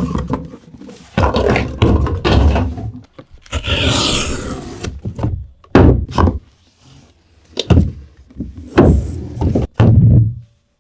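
Cardboard packaging of an Apple Mac Studio being handled and opened: a run of knocks and thunks as the box and its parts are moved and set down, with a longer rustling scrape about four seconds in.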